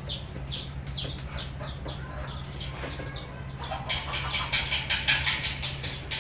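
Small birds peeping with short falling chirps a few times a second, then, about four seconds in, a fast run of sharp clicks, the loudest part, over a steady low hum.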